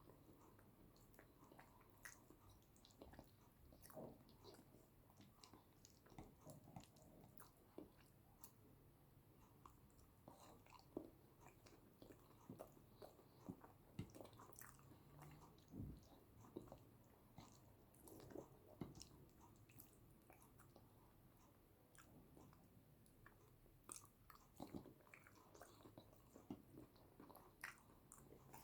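Close-miked, quiet chewing and wet mouth sounds of someone eating yam with eggplant sauce: soft, irregular smacks and clicks of biting and mastication.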